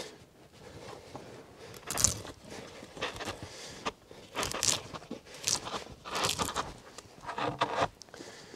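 Knife blade pulled along a split spruce paddle blank, shaving and prying off slivers of wood: a series of short, irregular strokes, roughly one a second.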